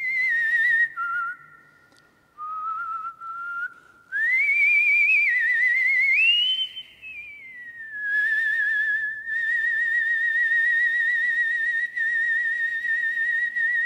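A man whistling a slow, lyrical melody by mouth: a single clear tone with vibrato moving through a few phrases, then, about eight seconds in, one long note held steady with a wavering vibrato, carried by the echo of a large stone church.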